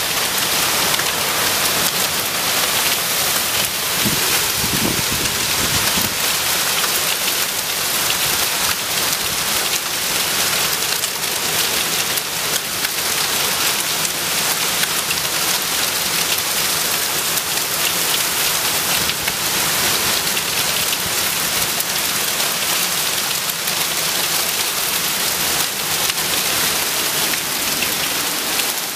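Heavy wind-driven rain pouring down in a summer thunderstorm: a loud, steady, dense hiss full of fine drop impacts. A brief low rumble comes about four to six seconds in.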